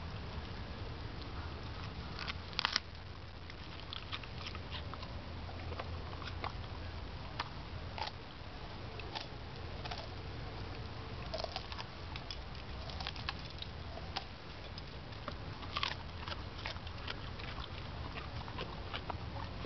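A Labrador biting and chewing broccoli leaves and stalks straight off the plant: irregular crisp crunches and snaps, the loudest about two and a half seconds in and again near sixteen seconds.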